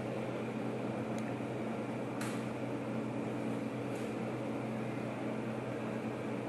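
Steady mechanical hum of room equipment, with three light taps about one, two and four seconds in as a steel rule is handled against a whiteboard.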